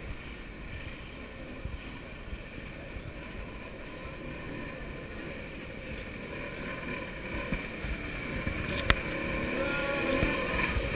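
Wind buffeting the microphone over a low steady rumble, growing louder in the second half, with a sharp click about nine seconds in and faint voices near the end.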